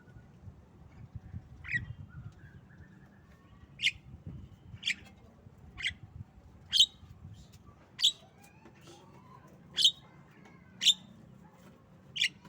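Javan myna giving short, sharp calls, about nine in a row, roughly one a second.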